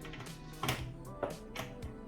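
Background music with a steady melody, with a few short light clicks or taps over it.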